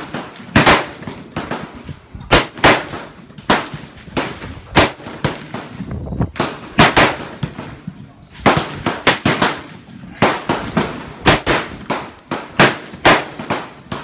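AR-15 rifle shots fired one after another at an uneven pace, about one or two a second, each sharp crack followed by a short echo, some shots louder than others.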